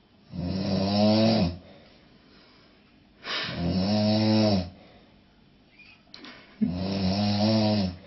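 A man snoring loudly in his sleep: three long, buzzing snores about three seconds apart, each lasting over a second.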